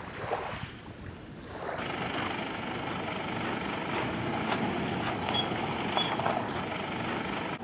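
Faint wind and shore noise at first. About two seconds in, this gives way to the steady running of a pickup truck's engine moving slowly close by on a paved road, with light clicks and rattles throughout.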